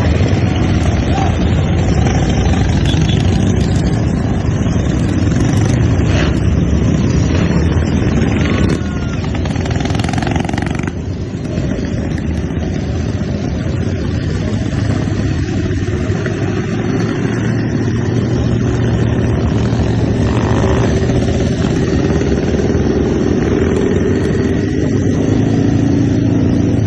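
Motorcycle engines running as a group of bikes rides along, a steady low rumble. One engine note climbs slowly in pitch over the last few seconds.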